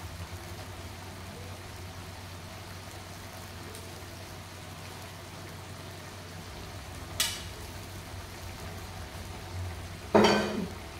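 A wok of vegetables in sauce simmering with a steady sizzle. A short sharp knock about seven seconds in, then a louder clatter near the end.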